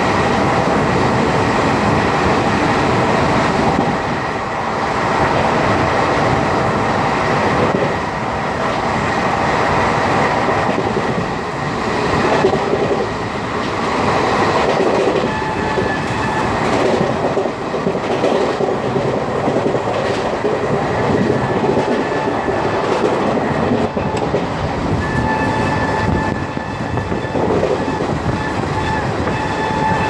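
ICF passenger coach running at speed: a steady rumble of wheels on rail with clickety-clack over the rail joints and wind noise from the open doorway. A steady high whine joins about five seconds before the end.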